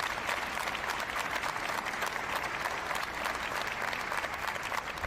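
Audience applauding, a dense steady clapping from a crowd.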